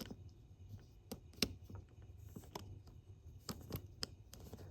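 Faint, irregular small clicks and taps of a screwdriver and small plastic parts as a model locomotive is taken apart.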